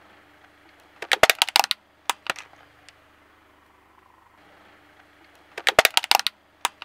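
A car tyre rolling over and crushing a black cylindrical tube with a plastic end cap: two bursts of rapid crackling and snapping, one about a second in and another near the end, with a few single cracks after the first. A faint steady hum runs underneath.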